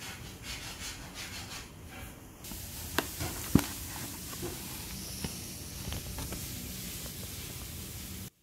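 Paper burger wrapper and cardboard takeout box rustling and crinkling as a fast-food burger is unwrapped, with two sharp clicks about three seconds in.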